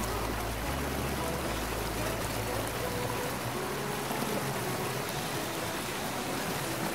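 Steady hiss of falling water from Bhagsunag waterfall, running low on water.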